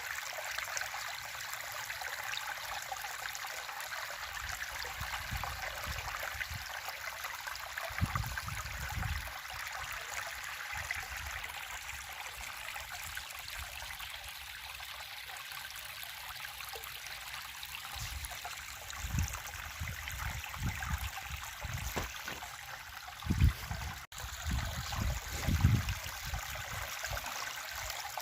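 River water flowing steadily. A few low rumbles come and go, one about eight seconds in and several more in the last ten seconds.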